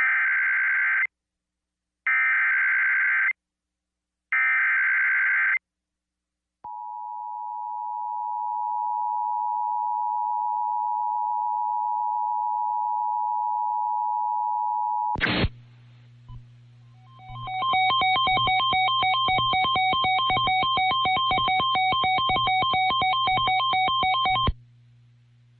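Emergency Alert System data header: three one-second bursts of screeching data tones about two seconds apart, followed by the steady 1050-hertz National Weather Service warning alarm tone for about eight seconds. After a short break, a rapidly pulsing alert of several tones over a low hum runs for about seven seconds.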